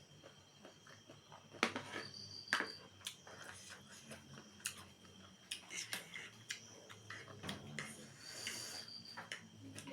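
Eating sounds close to the microphone: chewing and mouth clicks, with scattered light knocks of utensils or dishes.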